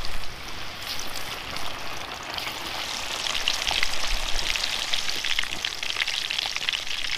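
Masa-coated catfish fillets deep-frying in hot oil in a steel pan: a dense, steady sizzle full of small crackling pops.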